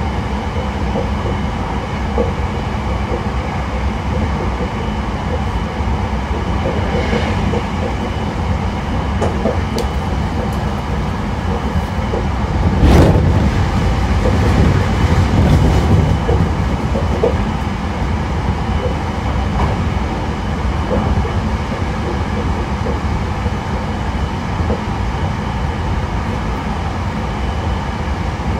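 Hankyu 9000 series electric train, with Toshiba IGBT VVVF drive, running at speed as heard from on board: a steady rumble of wheels on rail with faint rail-joint clacks. A louder rush comes about halfway through and fades over a few seconds.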